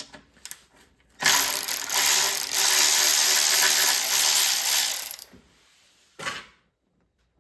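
Ratchet wrench cranking steadily for about four seconds, loosening the oil drain plug on a Predator 212 small engine, with a short second burst a second later.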